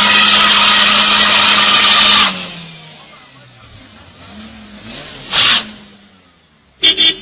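Car engines revving hard as cars race past. The sound is loud and steady for about two seconds, then drops away sharply. A short hissing burst comes about five seconds in, and a brief loud blast near the end.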